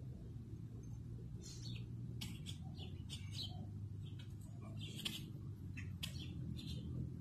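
Small birds chirping, many short separate calls scattered through, over a low steady background rumble.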